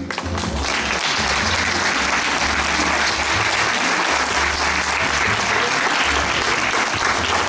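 Audience applauding, swelling up in the first half-second and then holding steady.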